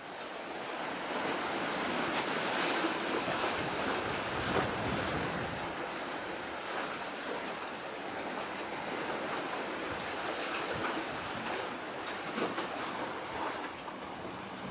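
Sea water washing against the shore, mixed with wind: a steady rushing noise that swells and eases a little.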